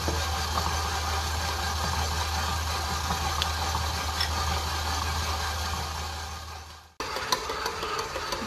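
KitchenAid Artisan stand mixer running with its dough hook, kneading butter-rich brioche dough: a steady motor hum. About seven seconds in the sound fades and cuts off, then the mixer is heard again with light rapid ticking.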